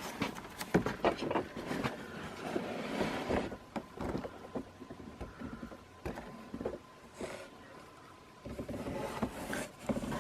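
Cardboard fan box and its contents being handled: irregular scraping, rustling and knocks, with a quieter lull about two-thirds of the way through.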